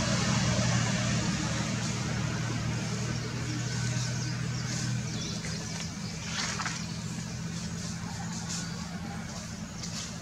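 A steady low engine hum, like a motor vehicle running, over a constant hiss; the hum eases off about halfway through, and a few short rustling clicks come in the second half.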